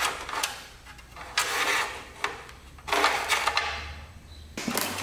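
Wires of the car's wiring harness being pulled and fed through a hole in the sheet metal: bursts of scraping and rustling with small clicks, about every second and a half, over a steady low hum.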